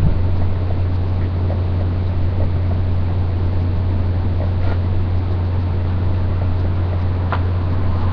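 A steady low hum with no change in pitch, with two faint clicks, one a little before the middle and one near the end.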